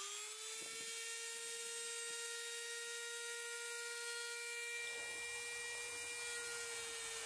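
Dremel 200 rotary tool with a cut-off wheel running at speed: a steady motor whine after spinning up. A faint rougher noise joins underneath about five seconds in.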